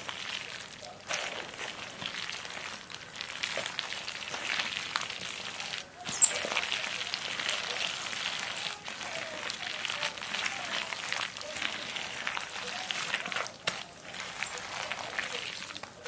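A rubber-gloved hand mixing wet kimchi seasoning with shredded radish in a stainless steel bowl: continuous wet, crackly mixing, with brief pauses about six seconds in and near the end.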